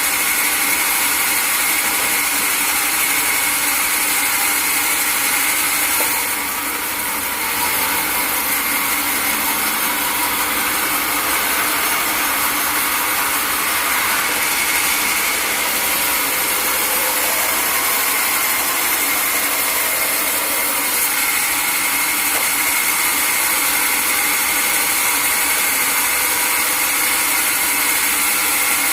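Sawmill saw running and cutting through wood: a steady, loud hiss with a high tone held throughout, dipping briefly about six seconds in.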